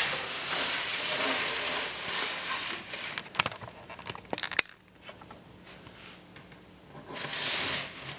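Plastic model building on its base sheet being slid and turned across a workbench: a scraping hiss for the first few seconds, a few sharp taps around the middle, and another short scrape near the end.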